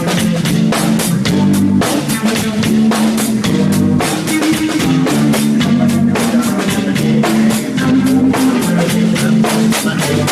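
Live rock band playing at full volume: a drum kit beating a steady, driving rhythm under electric guitar and bass holding low, sustained notes.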